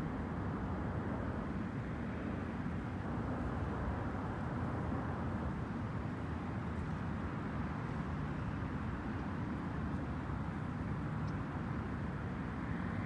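A steady low vehicle engine rumble that holds the same level and pitch throughout.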